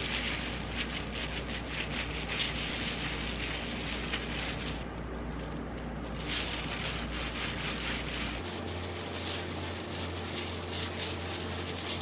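Plastic-gloved hands rustling and rubbing over a seaweed-wrapped kimbap roll as it is pressed, shaped and oiled: a rapid crinkly hiss in flurries, pausing for about a second midway. Under it runs a steady low hum.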